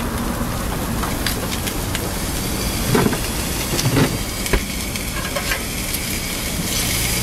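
Ham slices, a meat patty, a split hot dog and a fried egg sizzling steadily on a flat-top griddle, with a few knocks around three to four seconds in.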